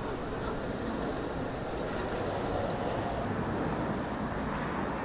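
Steady outdoor street background noise: a low hum of city traffic.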